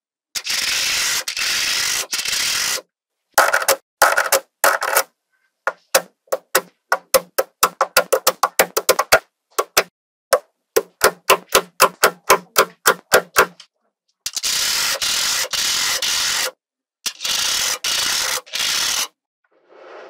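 Small magnetic balls being handled and pressed onto a model built of them: stretches of rubbing, rasping noise as layers of balls are slid and pressed into place, and a quick run of sharp clicks, about three or four a second, as balls snap on.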